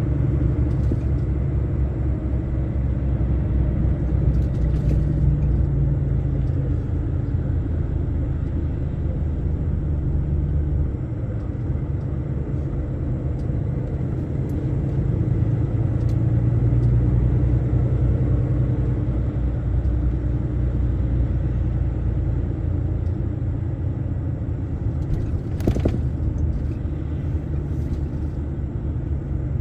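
Heavy DAF truck cruising on the motorway, a steady low engine drone and road rumble heard from inside the cab, swelling and easing slightly. One short click near the end.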